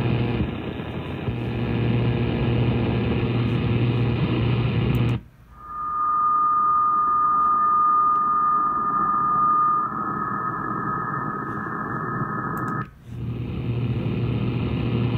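SDRplay RSP2 receiver's audio output: hissing radio static with a low hum. About five seconds in, the sound narrows and a steady, whistle-like beat tone from a received carrier holds for about seven seconds, then cuts back to the wider static.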